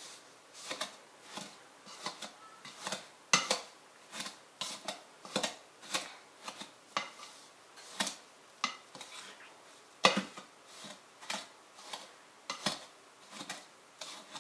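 Metal pastry blender chopping down into a mixing bowl of flour, its blades knocking and scraping against the bowl in short irregular strokes, about one to two a second, as coconut oil is cut into the dry scone ingredients.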